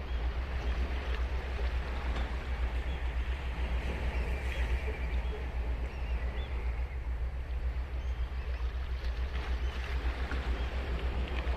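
Ocean waves breaking and washing up a sandy beach in a continuous surf wash, over a steady low rumble.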